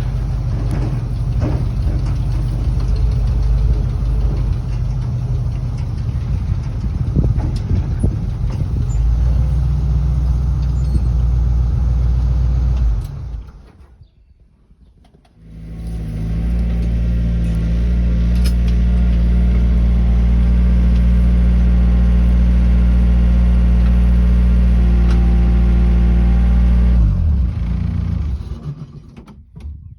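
An engine running, shut off about 13 seconds in, restarted about two seconds later, running steadily, then shut down near the end.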